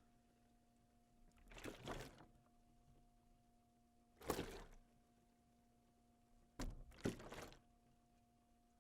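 Water sloshing inside a plastic bottle, heard as three short splashy bursts a couple of seconds apart; the last burst is doubled.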